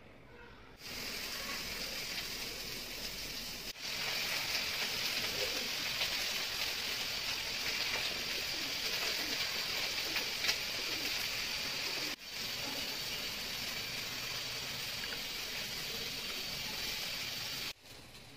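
A steady hiss, strongest in the upper range, that starts about a second in, drops out briefly twice and cuts off suddenly near the end.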